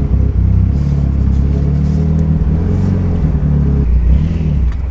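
Mitsubishi Lancer Evolution's engine running as the car is driven, its low pitch rising and falling with engine speed.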